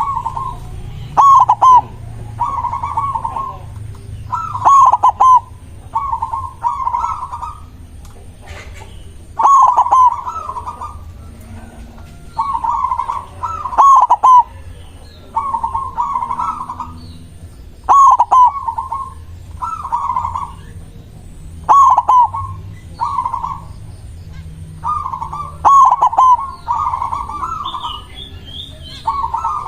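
White zebra dove (perkutut) singing: loud phrases of quick, clipped coo notes, one phrase about every two seconds, repeated throughout.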